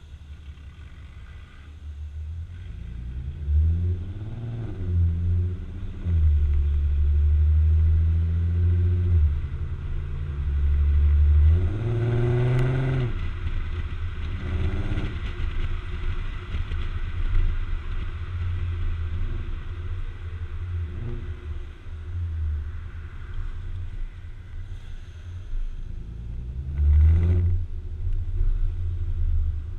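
Volkswagen Passat 3.6L VR6 exhaust with Magnaflow mufflers, heard right at the tailpipe as the car pulls away and accelerates: a deep drone whose revs climb and fall back several times, strongest about twelve seconds in, then settles to steadier cruising with another short rev near the end.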